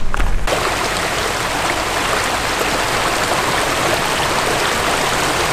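Spring-fed stream rushing over rocks: a steady hiss of running water that starts abruptly about half a second in.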